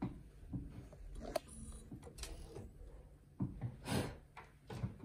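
Light clicks, knocks and rustling as yarn is handled and threaded into a knitting machine carriage's yarn feeder during a hand colour change. The sharpest knocks come a little past halfway and again near the end.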